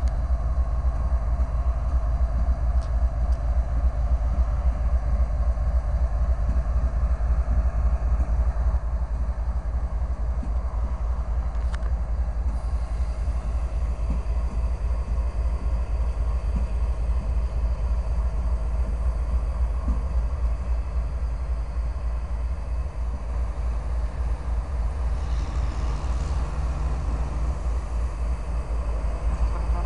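Train rolling past with a steady, loud low rumble.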